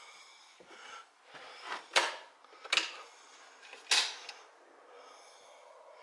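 Three short, sharp clicks close together near the middle, with faint rustling between them.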